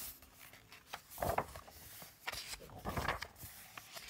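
Paper pages of a softcover book being turned, a few brief rustles about a second in and again around two to three seconds in.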